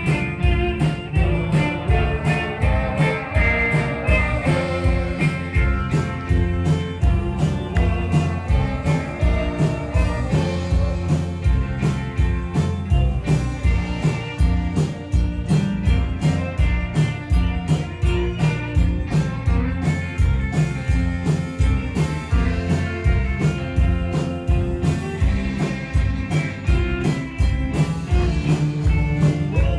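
Rock band music with a steady drumbeat and guitar.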